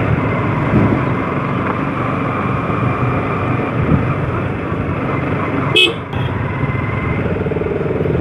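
Motorcycle engines running together in traffic, with vehicle horns tooting. There is a brief sharp sound a little over halfway through.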